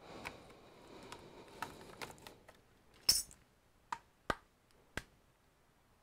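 Gloved hands handling a tablet and metal pry tools on a silicone work mat as the screen is worked loose: a light rustle, then a louder clack about three seconds in and three short sharp clicks after it.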